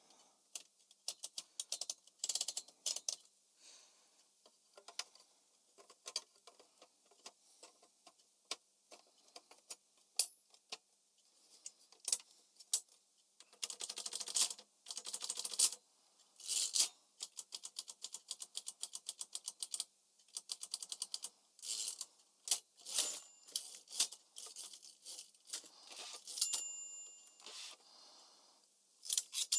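Smith-Corona Calypso portable typewriter being test-typed: keys strike in single clacks and fast runs, with a short ringing tone near the end.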